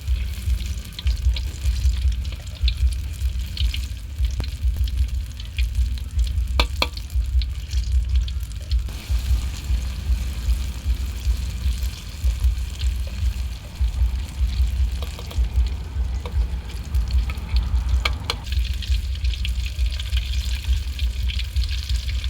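Battered banana pieces deep-frying in hot oil: a steady sizzle, with a few sharp clicks of a utensil against the pan.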